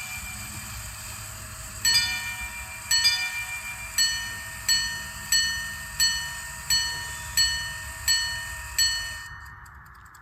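Minute repeater pocket watch striking the time on its gongs. Two double ding-dong quarter strikes are followed by eight evenly spaced single minute strikes, and it stops about nine seconds in. This is the quarters and minutes of 3:38, showing that the repeater agrees with the hands.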